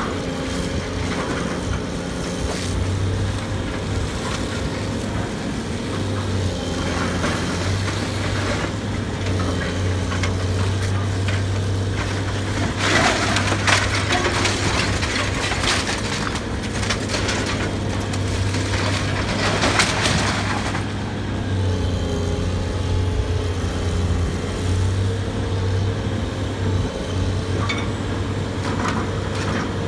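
Excavator's diesel engine running steadily while it tears into a building, with wood splintering and crunching as the structure is crushed, loudest in two bouts a little before halfway and about two-thirds of the way through.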